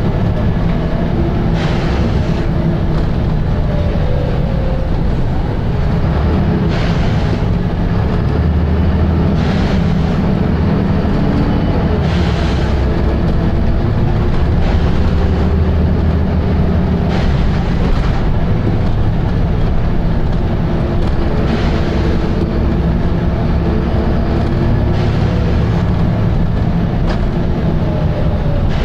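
Volvo B7RLE bus's diesel engine and driveline running under way, the engine note rising and falling as it pulls and changes speed, with short air hisses several times.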